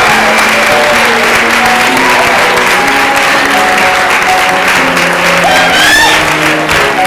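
Audience applauding, with a few rising whoops near the end, while a piano plays held notes underneath.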